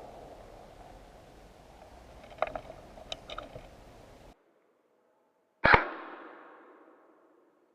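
A few light clicks over faint outdoor noise, then the sound drops out to dead silence and a single loud gunshot-like bang rings out with a long fading echo.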